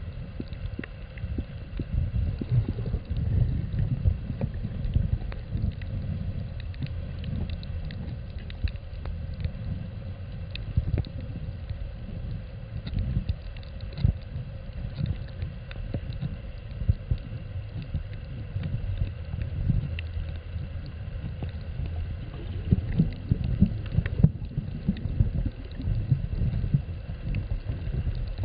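Muffled underwater rumble of water moving against a camera held below the surface, with irregular dull knocks and thumps throughout.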